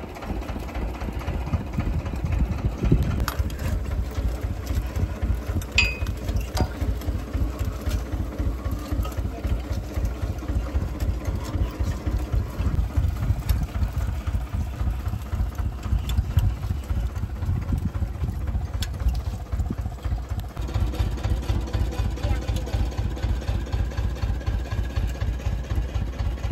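Tractor engine running at low, steady revs with a rhythmic low throb while it pulls a strawberry transplanter, with a few sharp clicks over it.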